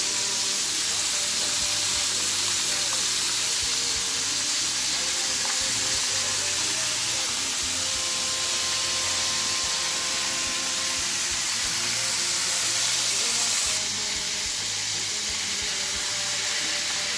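Floured salt-cod pieces frying in plenty of hot oil in a pan: a steady sizzle, its tone shifting slightly near the end.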